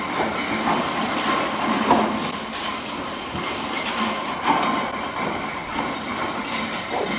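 Landslide: loose rock and debris streaming down a steep, rain-soaked slope, a steady rush full of clattering stones, with a few louder knocks about two and four and a half seconds in.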